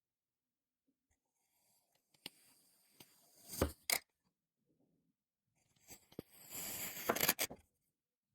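Kinetic sand being cut twice: each cut is a crumbly, scraping crunch that grows louder and ends in a few sharp cracks.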